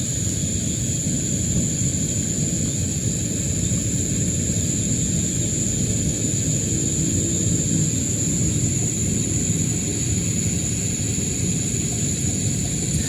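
A steady low rumble, with a continuous high-pitched insect drone of crickets or cicadas held on one tone above it.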